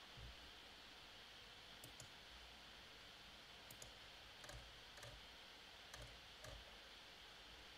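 Near silence: faint steady hiss of room tone, with a few soft, scattered clicks.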